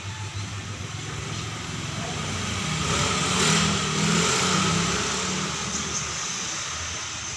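A running engine that grows louder to a peak about three and a half seconds in, then fades.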